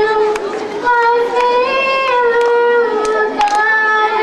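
A high singing voice carrying a melody in long held notes that step up and down every half second to a second, with a few sharp taps now and then.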